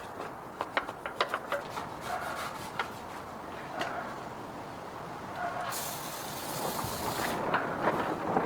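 Scattered clicks and knocks of hand work on metal parts, then a steady hiss lasting about a second and a half, from about six seconds in, before more clicks.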